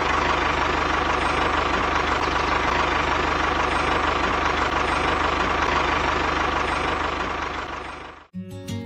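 An engine running steadily at idle with a rapid even knock, fading out near the end and stopping.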